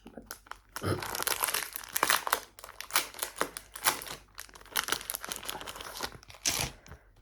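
Packaging crinkling and rustling in irregular bursts as it is opened and the item inside is handled.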